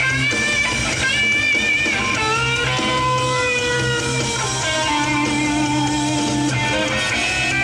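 Rock band playing live through a festival PA, electric guitar to the fore over bass and drums, recorded from the crowd.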